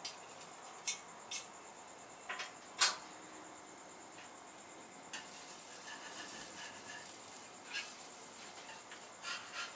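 Metal spatula tapping and scraping on a flat-top griddle: several sharp clicks in the first three seconds, a longer scrape a little past the middle, and a few more taps near the end.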